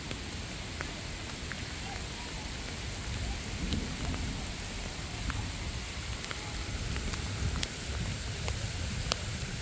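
Steady rain falling, with scattered sharp ticks of single drops and a low rumble underneath.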